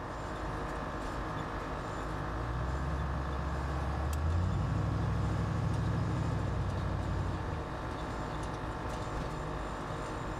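Cabin sound of a 1989 Chevy Suburban on the move: the engine pulls harder about two seconds in, rising in pitch and loudness, holds, then eases off a few seconds later. Under it runs a steady hum that the passenger takes for the air-suspension compressor.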